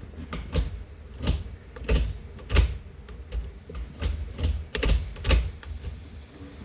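Irregular sharp clicks and light metallic knocks from hand tools and shifter parts being handled while fitting the short shifter's bolt and ball, about ten in all.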